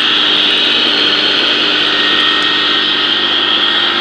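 Electric peanut butter grinding machine (colloid mill) running: a loud, steady high whine over a lower hum.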